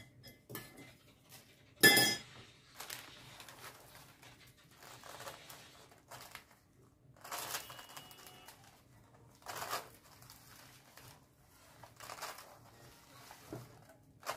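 A metal spoon clinks sharply once against a glass bowl about two seconds in, then soft, scattered rustling and crinkling as chocolate shavings are pressed onto the cream-covered side of a cake with a plastic scraper, over baking paper.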